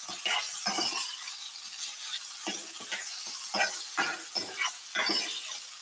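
Sliced bell peppers and onions sizzling in oil in a stainless steel skillet, with a metal spoon scraping and knocking against the pan as they are stirred, a stroke every half second to a second.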